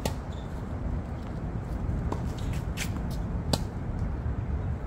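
Tennis ball struck by a racket with a sharp pop at the very start, followed by several more pops and knocks of the ball being hit and bouncing during the rally, the loudest about three and a half seconds in, over a steady low outdoor rumble.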